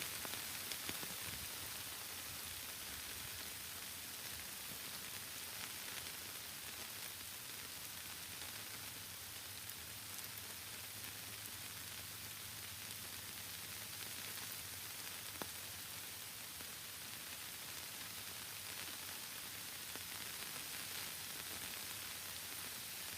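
Steady rain falling: an even hiss with occasional faint drop ticks.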